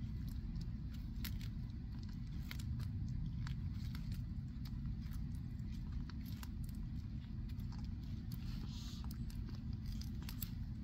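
Tortoises biting and chewing on fresh greens: irregular sharp crunches and clicks over a steady low rumble.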